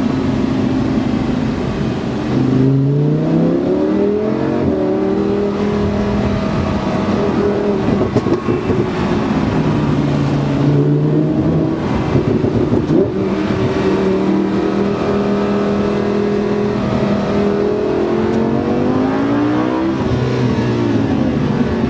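Lamborghini Huracán LP610-4's V10 engine pulling hard and shifting gears, its pitch climbing and then dropping back several times.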